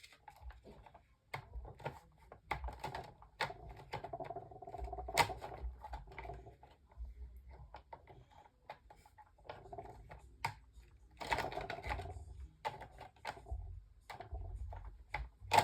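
Irregular clicks, taps and scraping as a Holmes Blizzard desk fan's front grill is handled and worked into place on the fan.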